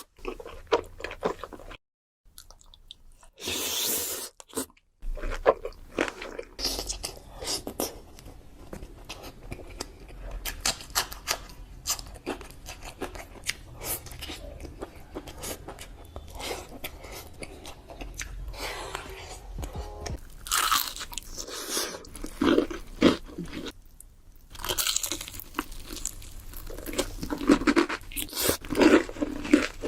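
Close-miked crunching and chewing as someone bites into and eats crisp food, a dense run of crackles broken by a few short silent gaps.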